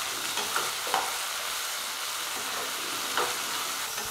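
Chopped tomato, ginger-garlic paste and onion sizzling in hot oil in a non-stick kadai while a spatula stirs them, with a few sharper scrapes of the spatula against the pan.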